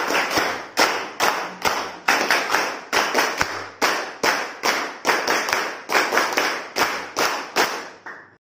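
A group of people clapping their hands together in a steady rhythm, about two to three claps a second, stopping near the end.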